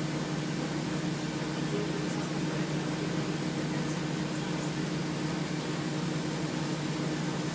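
Steady drone inside the cabin of a 2000 Nova Bus LFS city bus, its Detroit Diesel Series 40 engine running evenly with a constant low hum.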